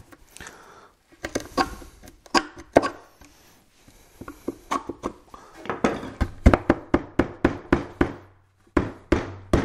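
Wood chisel cutting into a spruce board: an irregular run of sharp wooden clicks and knocks as it pares out a small recess for a joint. The cuts come fastest in the second half.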